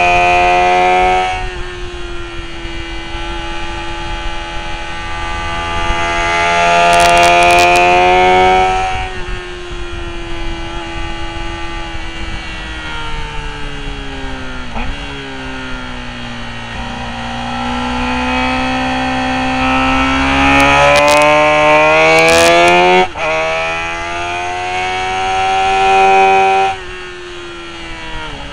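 Motorcycle engine heard from an onboard camera on a race track, over steady wind rush. It accelerates hard with the revs climbing several times, and each time the level drops suddenly as the throttle closes. Between the pulls the revs slide down as the bike slows for a corner.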